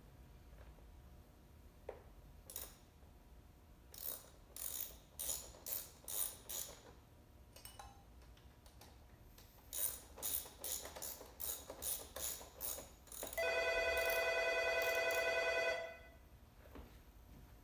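Ratchet wrench clicking in short runs of strokes while parts are bolted onto a small electric ATV. Near the end a telephone rings once for about two and a half seconds, the loudest sound.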